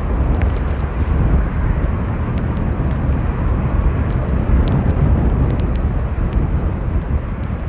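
Steady low rumble of strong wind buffeting the microphone, mixed with the distant jet noise of a Boeing 787-8 with Rolls-Royce Trent 1000 engines. Scattered light ticks of rain are heard through it.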